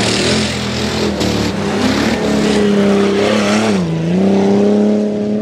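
Jeep Cherokee XJ tough truck's engine running hard under throttle across a dirt course, its pitch dipping briefly near four seconds in and climbing back. A rush of noise rides over the engine in the first second or so.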